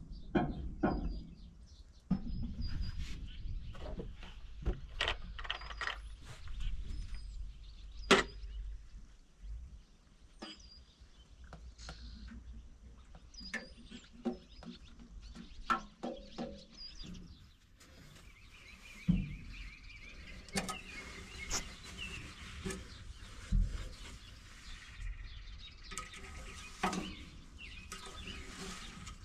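Scattered knocks and clicks, with birds chirping now and then; a steady hiss comes in from a little past halfway.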